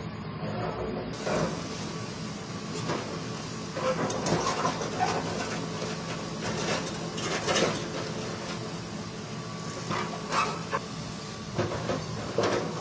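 Steady mechanical hum with irregular clanks, knocks and clatter over it.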